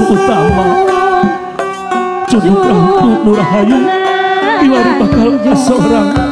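Sundanese traditional music: a sliding, heavily ornamented melody over sustained tones, with hand-drum strokes keeping the beat.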